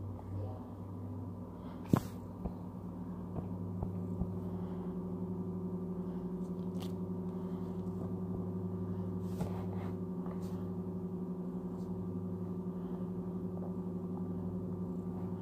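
A steady low hum that shifts in pitch about four seconds in and then holds, with a sharp click about two seconds in and a few lighter clicks soon after.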